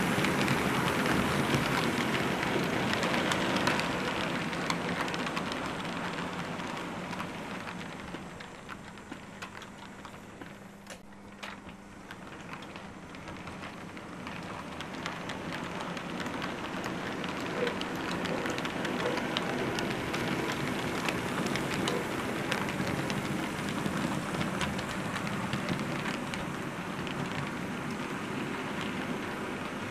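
Model train, two English Electric Class 37 diesels hauling coaches, running on the layout: a rumble of motor and wheels with many small clicks over the track. It is loud as the train passes close, fades as it runs away round the layout, then grows louder again as it comes back round.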